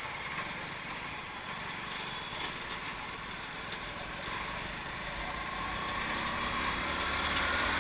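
Street traffic heard from a moving vehicle: engines running and tyres on the road, a steady noise that grows a little louder in the last few seconds.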